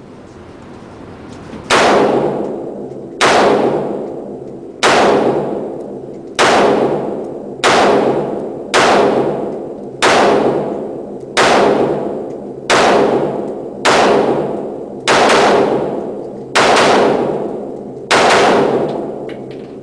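A steady string of about thirteen gunshots, one every second and a half or so, each ringing out with a long echo.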